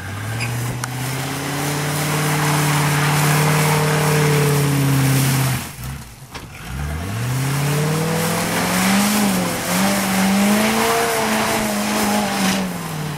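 Truck engine revving hard with its wheels spinning and digging in mud. The revs climb and hold for about five seconds, drop away, then climb again and waver before falling near the end.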